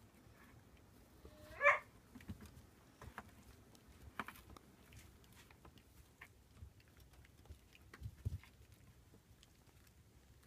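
Five-week-old rough collie puppies wrestling: one puppy gives a single short, high yelp about a second and a half in. Soft scuffling and a few light thumps of paws and bodies on the floor follow.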